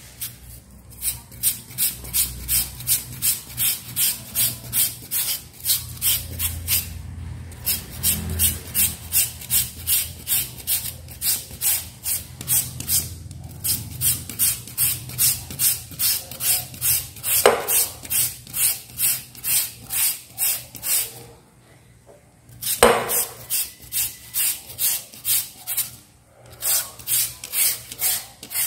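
A peeled raw potato being shredded on a handheld julienne grater: steady rhythmic rasping strokes, about two a second, broken by a few short pauses. Two sharper knocks stand out, one a little past halfway and one about three-quarters through.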